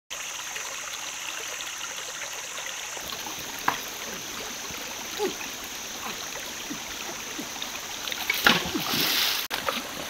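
Shallow rocky stream trickling steadily, with louder splashing in the water from about eight seconds in.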